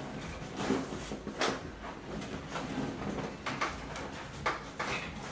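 A person shifting and rolling over on a padded chiropractic treatment table: a string of irregular short rustles, creaks and soft knocks.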